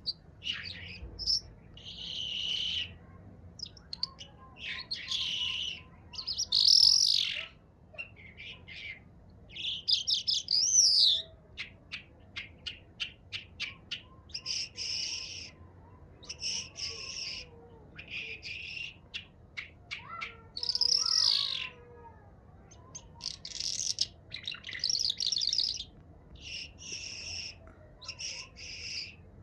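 A songbird singing: repeated high, twittering phrases of a second or two each, some with rapid trills and fast ticking notes, separated by short pauses.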